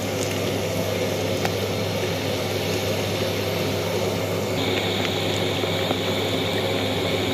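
Marinated fish steaks sizzling as they shallow-fry in hot oil in a frying pan, a steady sizzle over a low hum. A thin high tone joins about four and a half seconds in.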